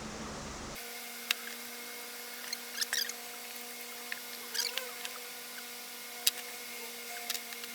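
Small metal parts clicking and tapping as a component is fitted back into a demolition hammer during reassembly: scattered sharp clicks, some in quick clusters, over a faint steady hum.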